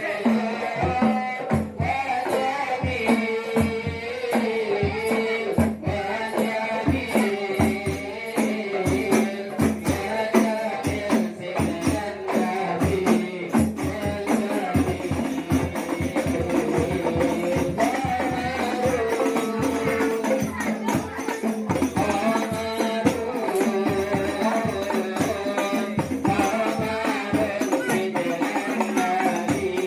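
Hadrah ensemble playing: rebana frame drums beat a quick, steady rhythm with jingling percussion, under a pitched melody line.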